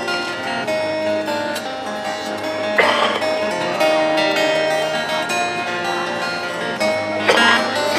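Acoustic guitar playing the instrumental introduction to a folk song: picked notes and chords, with two brief louder accents about three seconds in and near the end.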